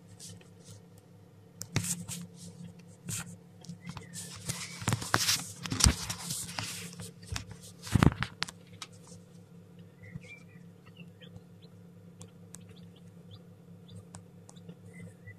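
Newly hatched chicks stirring in wood shavings: scratchy rustling and clicks, with two loud knocks near the middle, then a few faint peeps near the end, over a steady low hum.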